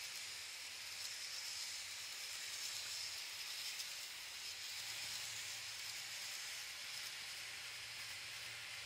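Model EF66-100 locomotive with its 12 ft container wagons running on model track: a steady faint hiss of wheels and running gear, with a low motor hum coming in about halfway through.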